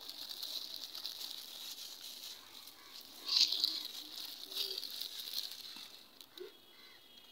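Plastic snack packet crinkling and rustling as it is handled and the snack is shaken out into hands, in uneven bursts that are loudest about three and a half seconds in.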